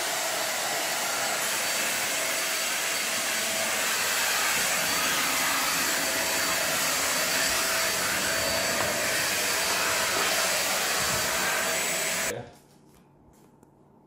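Deerma DX700 handheld vacuum cleaner running steadily: a loud rush of air with a high motor whine. It cuts off about twelve seconds in.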